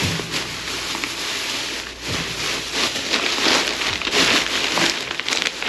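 Thin plastic grocery bags rustling and crinkling as gloved hands dig through and pull at them, with irregular sharp crackles that grow louder in the second half.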